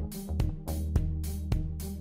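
Background music with a steady beat of about two strokes a second over a sustained bass line.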